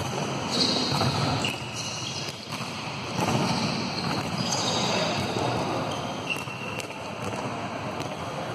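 A volleyball struck by players' hands and bouncing on a sports-hall court several times, with sneakers squeaking on the floor.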